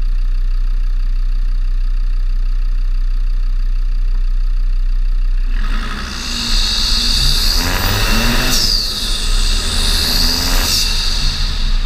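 Land Rover Defender Td5 five-cylinder turbodiesel, Stage 3 remapped and breathing through an open cone air filter, idling steadily, then revving hard from about halfway as it pulls away, with a loud high whistle from the turbo and intake. The revs drop briefly about two-thirds through, at a gear change, then climb again.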